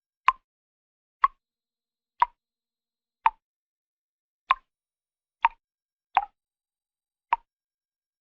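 Cartoon sound-effect water drips: eight single drops plopping into water, about one a second, each a short pitched plink.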